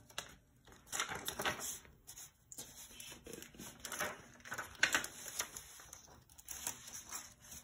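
Paper rustling and crinkling in short irregular bursts as a sheet of brown kraft paper and a sublimation transfer sheet are lifted and peeled off a freshly heat-pressed plaque.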